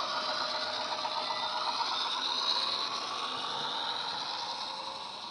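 Model train running past on model track: wagon wheels rattling over the rails, with the Class 121 locomotive's DCC sound decoder playing its diesel engine through the model's speaker as it draws away. The sound eases off slightly near the end.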